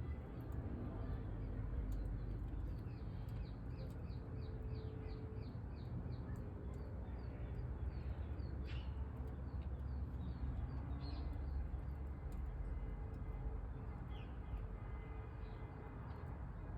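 A songbird singing outdoors, a quick run of about a dozen short, repeated down-slurred notes, then a few scattered calls, over a steady low rumble with a few sharp clicks.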